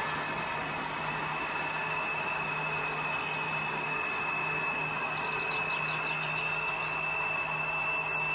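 HO-scale model coal train running on the layout's track: a steady mechanical running sound with a constant high whine and a low hum, and a few faint squeals a little past the middle.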